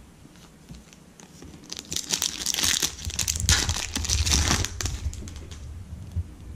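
A trading-card pack's wrapper crinkling as it is torn open and handled, in two rustling surges from about two seconds in to about five seconds in.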